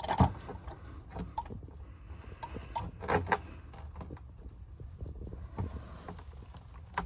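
Socket ratchet on an oil-pan drain plug: scattered metallic clicks and knocks as the ratchet is worked, with a short run of clicks about three seconds in.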